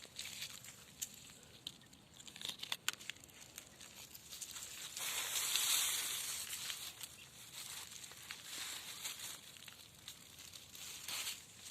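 Faint handling noise as a fishing rod is handled: a few sharp clicks, then a rustling swell about five seconds in that dies away.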